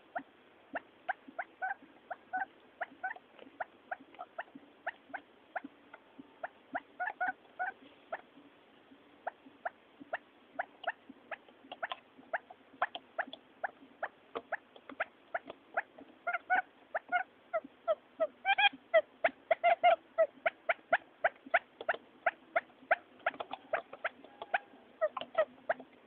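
Quail lure recording of male and female quail calling: short, sharp chirping calls repeated a few times a second, crowding closer and louder in the second half.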